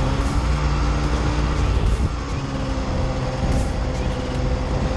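Snowmobile engine running under steady throttle, holding an even pitch, heard close from the rider's seat while driving through powder.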